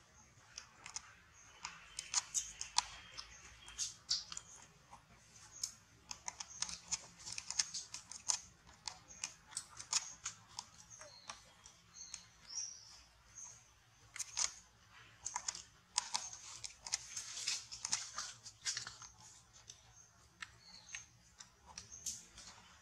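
Baby monkey chewing and nibbling a green leaf: a steady, irregular run of small clicks and crunches.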